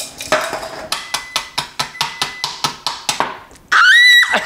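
Chef's knife chopping ice cubes on a cutting board: quick, even chops, about five a second. Near the end a loud whistle-like tone rises in pitch and holds for about half a second.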